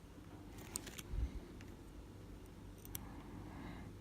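Faint, sharp clicks of small metal lock parts being handled, as the pins and springs of an Elzett 2048/55 padlock are worked into their chambers with a bobby pin. There are a few clicks about a second in and one near three seconds, with a soft low bump between them.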